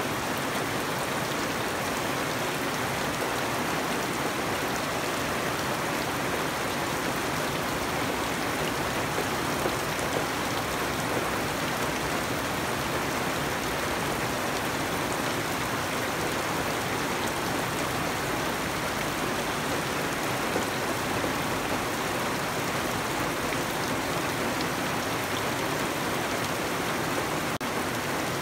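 Steady rain falling on garden foliage and wet ground, an even hiss that does not let up.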